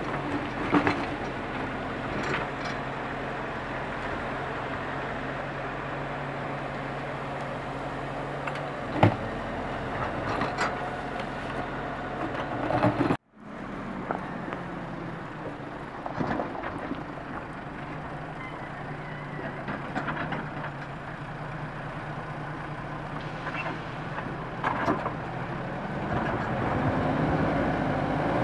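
Diesel construction machinery running steadily, with occasional clanks and knocks. The sound cuts off suddenly about halfway, then machinery runs again, with a backhoe loader's engine getting louder near the end.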